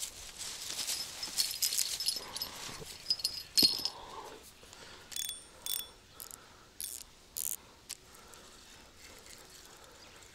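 Fishing reel winding in line on a hooked trout: a dense run of ratcheting clicks for about the first four seconds, then several short separate bursts.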